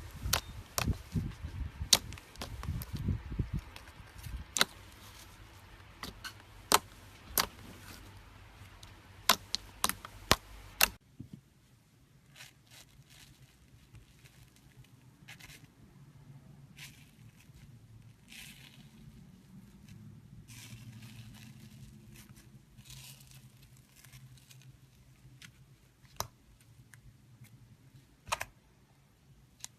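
Slime being played with by hand: sharp pops and clicks of trapped air, with handling noise for the first ten seconds or so, then fainter scattered crackles.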